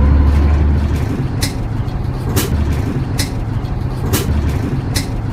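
Isuzu Erga Mio bus's ACT shift actuator working, with five short sharp hisses of air about once a second, over the steady low running of the 6HK1 inline-six diesel.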